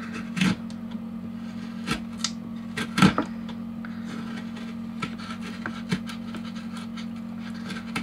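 The square front push edge of a small 7Cr17-steel folding knife scraping along the edge of a balsa wood board, shaving off thin curls in a series of short, irregular strokes; the loudest is about three seconds in. A steady low hum runs underneath.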